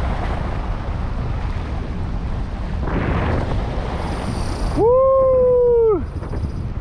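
Wind buffeting the microphone and surf washing over rocks, steady throughout. About five seconds in, a loud drawn-out 'oh!' exclamation is held on one slightly falling pitch for about a second and cuts off.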